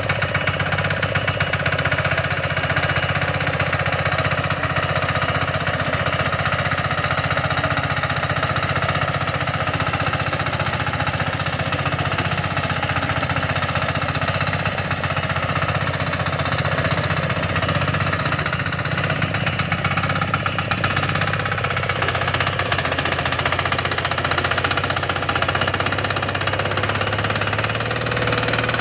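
VST Shakti Josh RT70 power weeder's single-cylinder diesel engine running steadily under load while its rotary tines churn the soil, with a rapid, even firing beat. The engine speed picks up slightly near the end.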